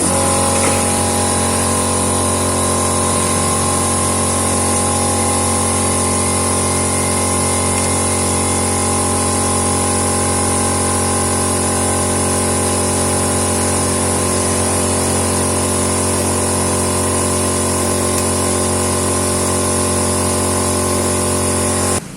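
A steady machine hum with a high whine over it, unchanging throughout, that starts and stops abruptly.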